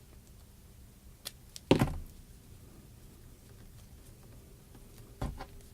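Hand tools being handled during wire work: a sharp click, then a short clatter about two seconds in, and a quick double click near the end, over a faint low hum.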